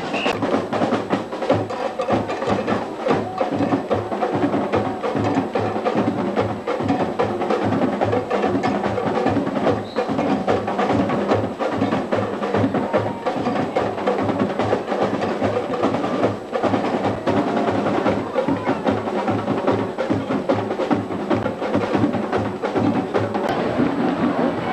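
Carnival street band playing drums and percussion: a steady low drumbeat under dense, sharp clicking strikes.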